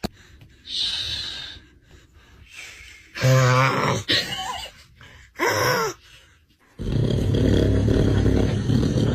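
A man snoring in his sleep: a few short breathy and voice-like sounds, then one long, loud, rough snore starting about seven seconds in.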